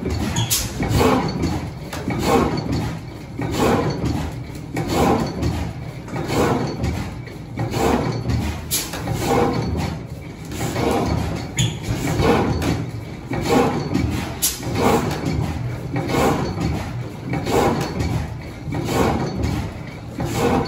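Large antique horizontal stationary gas engine with twin spoked flywheels running slowly, a regular beat about every second and a third over a steady low rumble.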